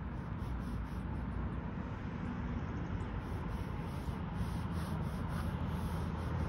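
Pen scratching in short strokes on sketchbook paper during ink drawing, over a steady low background rumble.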